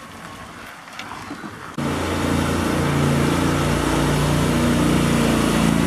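Quiet background at first, then, about two seconds in, a small engine's steady running starts abruptly: a riding lawn tractor's engine.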